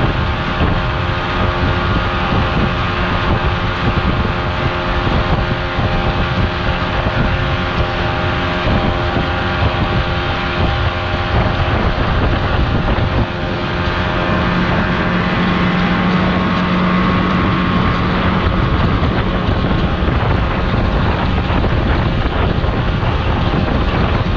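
Outboard motor running steadily as a small open boat travels across choppy water, with wind buffeting the microphone. A little over halfway through, the engine gets slightly louder and its note changes.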